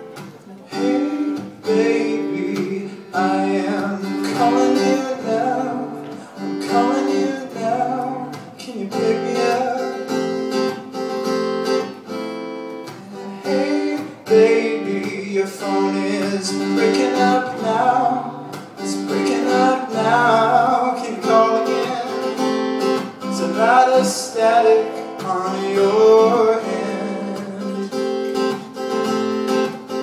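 Acoustic guitar strummed with a man singing a song over it; the voice comes in about three seconds in.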